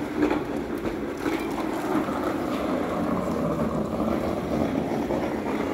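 A platform cart's wheels rolling over a concrete floor: a steady rumble.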